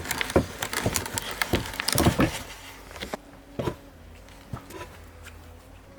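A quick, irregular run of wooden clicks and knocks from hand-tool work on an oak beam, then a few single knocks after about three seconds.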